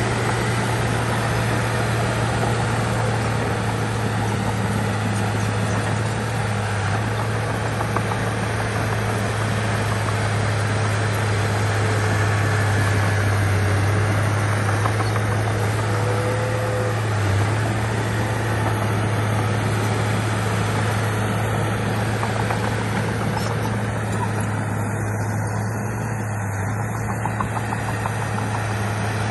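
Bulldozer's diesel engine running steadily, a constant low drone.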